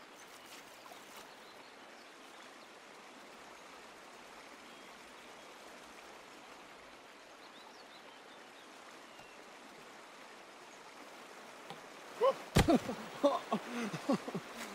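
Stream water running steadily. About twelve seconds in there is a sudden thump, followed by a cluster of short, louder sounds.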